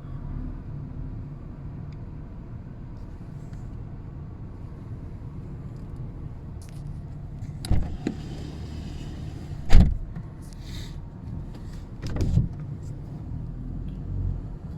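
BMW car's engine running with a steady low hum, broken by three sharp thumps, the loudest a little past the middle.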